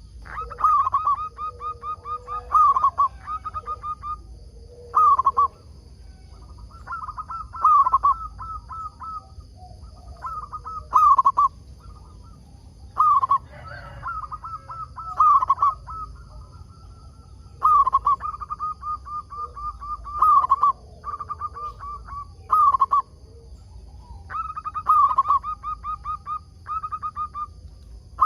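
Zebra dove (perkutut) cooing over and over. Each phrase is a loud opening note followed by a quick run of short staccato coos, and the phrases come every two to three seconds. A faint steady high-pitched tone runs underneath.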